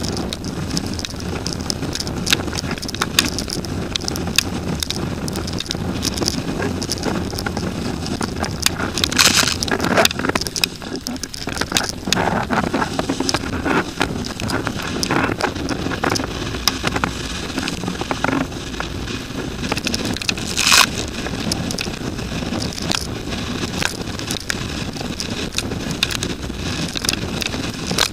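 Storm-force wind, around force 10 (50 knots), blasting the rig-mounted camera's microphone as a windsurf board planes through rough chop, a constant rush of wind and water broken by frequent sharp knocks and slaps of the board and spray. Two louder bursts come about nine seconds in and about twenty-one seconds in.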